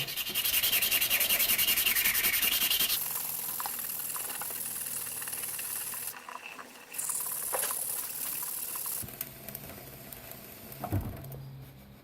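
Sandpaper, 220 grit, rubbed quickly back and forth across a PC heatsink to flatten and polish it, the footage sped up so the strokes come very fast. Loudest for the first three seconds, then fainter with changes in tone.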